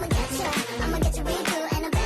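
Pop music with a steady beat and a singing voice.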